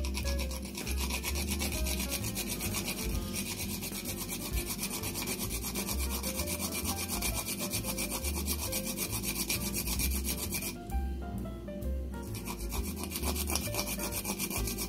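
A whole nutmeg is grated on a small metal hand grater in quick, steady rasping strokes, with a pause of about a second near the end. Soft background music plays underneath.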